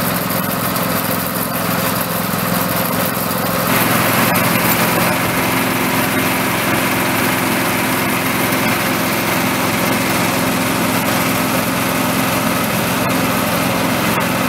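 Small engine running steadily at a constant speed, getting a little louder about four seconds in.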